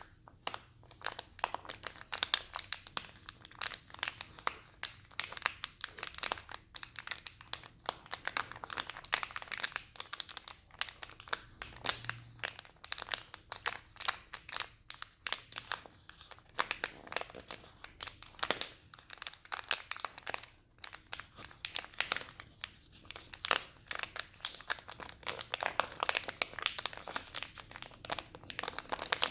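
A packet being crinkled and scrunched in the hands, a continuous run of irregular crackles.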